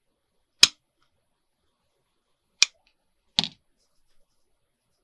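Three short, sharp clicks with silence between: one about half a second in, then two close together near the middle.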